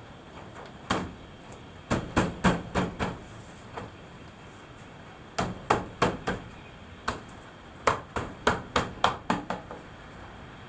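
Hammer blows on wood, sharp knocks coming in several quick runs of strikes.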